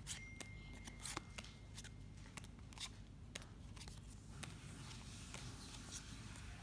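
Pokémon trading cards being flipped through by hand, quiet clicks and slaps as the cards slide over one another in the stack.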